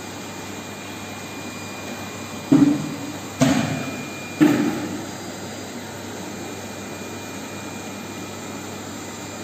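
A steady mechanical hum, with three dull thumps about a second apart a few seconds in, each ringing briefly as it fades.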